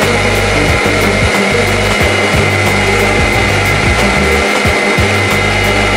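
Optimum 9400 high-speed blender running continuously, blending a smoothie: a loud, steady whir with a high whine.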